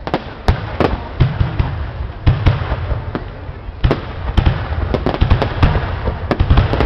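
Aerial firework shells bursting in quick succession at a large display: sharp bangs two or three a second, coming thicker near the end, over a steady crackle.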